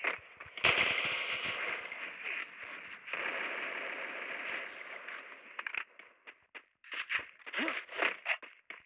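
Firework set off: a sudden loud hissing spray starts about half a second in and carries on for several seconds, fading, then gives way to a string of sharp crackling pops.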